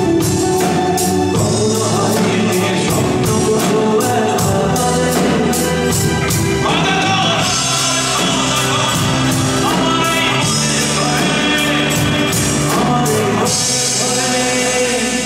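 A live band playing a Bengali song, with singing over a steady drum beat; the vocal line grows stronger about seven seconds in.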